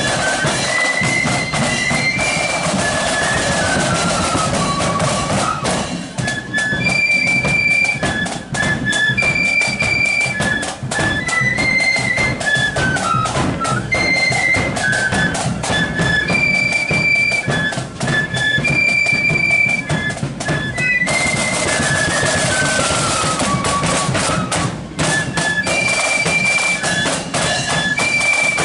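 Marching flute band playing a high flute melody, with stepwise descending runs, over steady snare and bass drumming.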